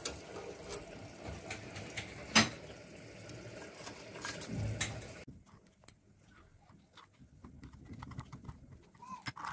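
Charcoal disc held in a gas burner flame with metal tongs, hissing and crackling as it catches, with one sharp clack about two and a half seconds in. After about five seconds it goes quieter, leaving light scattered clicks and taps of metal tongs and spoon against the glass incense burner.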